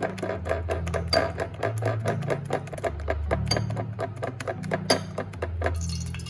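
Background music with a stepping bass line and a fast, steady run of clicks.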